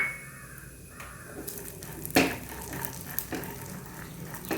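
Cashew nuts and peanuts sizzling as they roast in ghee in a pan, with a few sharp knocks of a spoon against the pan, the loudest about two seconds in.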